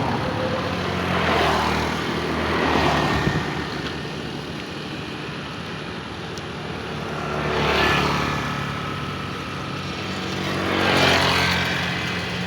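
Vehicles passing by one after another, each a rush of engine and tyre noise that swells and fades, four times, over a steady low engine drone.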